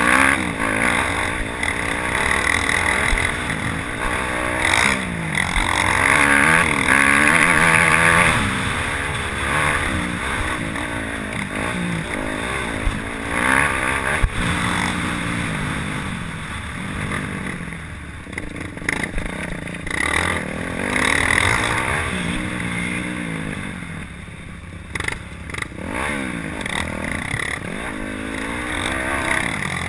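Yamaha YZ250F four-stroke single-cylinder dirt bike engine heard from on the bike, revving up and falling back again and again as the throttle opens and closes and the gears change. The pitch rises and drops every few seconds.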